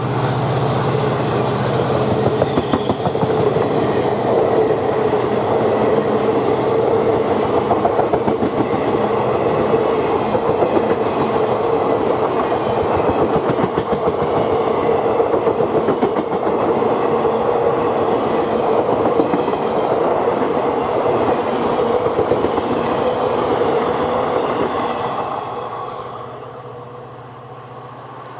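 Passenger train rolling past at speed, its coach wheels clattering rhythmically over rail joints, then dying away near the end as the train recedes.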